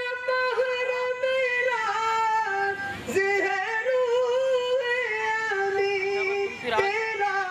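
A man singing solo and unaccompanied into a microphone, holding long notes that bend and ornament up and down, with a short break for breath about three seconds in.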